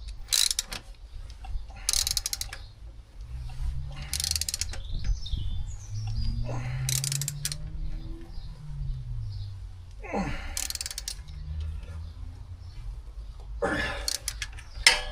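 Ratchet wrench clicking in about six short bursts of rapid clicks, tightening the refitted gear lever.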